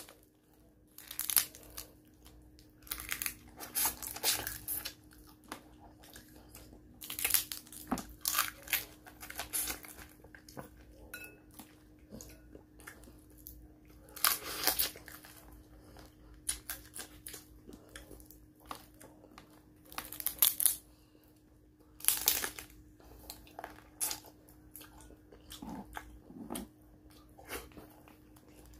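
Cooked crab shell being cracked and torn apart by hand, and the meat crunched and chewed close to the microphone, in irregular bursts every second or two.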